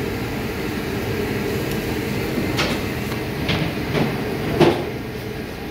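Steady low rumble of background noise with four sharp clinks in the second half, the loudest near the end, like a metal ladle knocking against a stainless steel steam-table pan.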